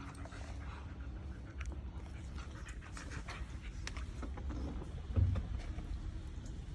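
Dogs panting during rough play between a husky puppy and a Doberman puppy, with scattered clicks and scuffles and one low thump about five seconds in.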